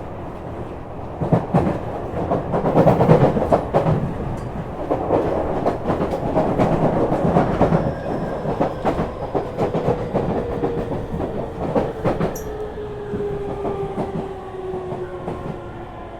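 Tokyu 5000 series electric train heard from on board: wheels clattering over rail joints and points over a running rumble, then the Hitachi IGBT-VVVF inverter and traction motor whine falling steadily in pitch as the train slows.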